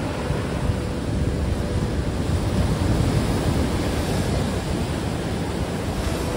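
Surf washing onto a beach, swelling about halfway through, with wind buffeting the microphone.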